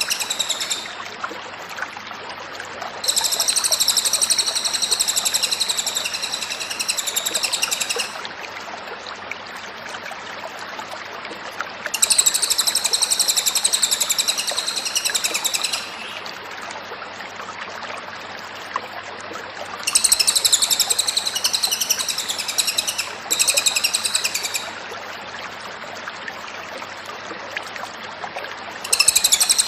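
A Cililin songbird singing in high-pitched bursts of rapid trilling, each lasting about two to five seconds, with pauses of a few seconds between them. A steady hiss and a low hum run underneath.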